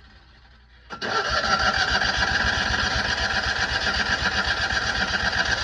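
Starter motor cranking the Citroën 2CV's air-cooled flat-twin engine, a steady whine with a fast regular chug of compression strokes, starting suddenly about a second in and stopping at the end without the engine catching. The car won't start, and the cranking serves to check for spark at the ignition coil.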